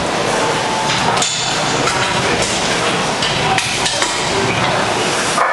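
Weight-room din: metal weights clanking and knocking now and then over a steady background noise.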